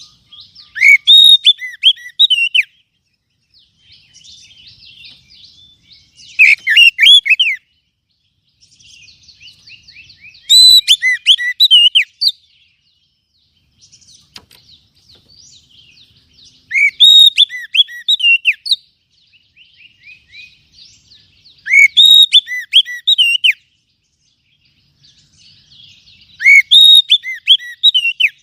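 Oriental magpie-robin (kacer) singing. Loud, rapid phrases of sweeping notes come about every five seconds, six times, with softer twittering in between.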